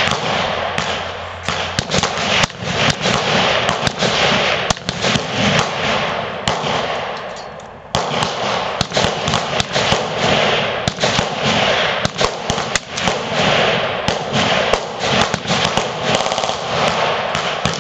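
Sustained rapid gunfire from many AR-15-style rifles firing at once, shots overlapping into a near-continuous crackle. The firing thins out toward about eight seconds in, then picks up abruptly again.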